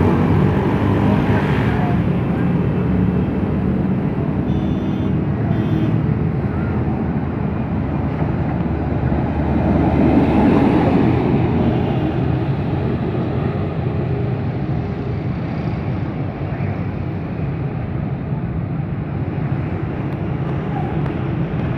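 Diesel engine of a Plasser & Theurer GWS 75 track maintenance vehicle running as it comes along the track and passes, loudest about halfway through, then fading slowly.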